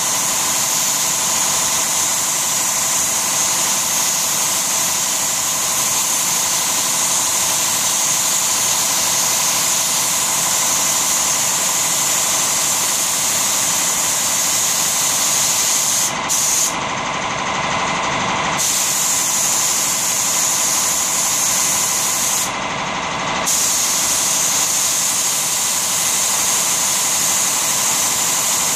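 Siphon-feed spray gun hissing steadily as compressed air atomises a mahogany-colour shader being misted onto wood. The high hiss drops out twice in the second half, for about two seconds and then about one.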